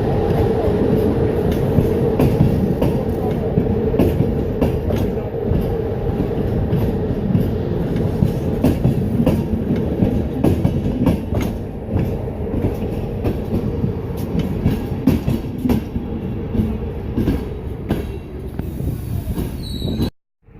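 Passenger train rolling slowly through the station, its wheels knocking irregularly over rail joints and points under a steady running rumble. A steady tone is strongest in the first several seconds and then fades. The sound cuts off suddenly near the end.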